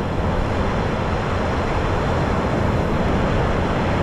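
Steady wash of surf and wind, with wind buffeting the microphone.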